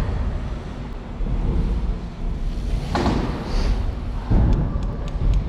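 Wind rumbling on the microphone while a bike is ridden, with two thumps, about three seconds in and again just over a second later.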